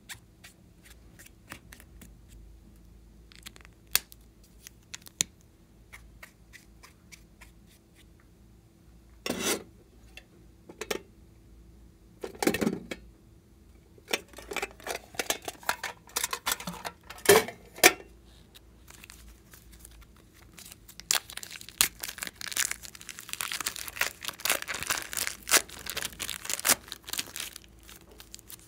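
Hands handling plastic slime-making containers and a plastic piping bag: scattered small clicks and taps, a few short louder rattles and knocks, then a long stretch of plastic crinkling as the piping bag is worked by hand near the end.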